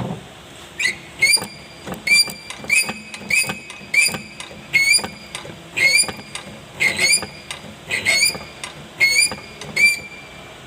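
Tractor diesel injector being worked on a hand-lever pop tester: a short high-pitched squeal as it sprays with each pump stroke, about fourteen in a row, roughly one every two-thirds of a second, starting about a second in.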